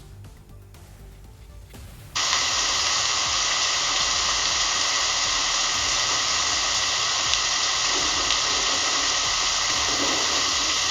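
An AI-generated sound effect of steady rushing water, a hiss that cuts in suddenly about two seconds in and holds evenly after a quieter start.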